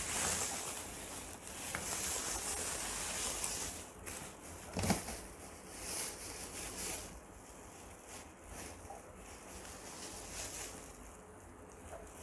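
Bubble wrap rustling and crinkling as it is handled and pulled off plastic fan blades, loudest in the first few seconds. A single knock sounds about five seconds in, followed by quieter, scattered rustles.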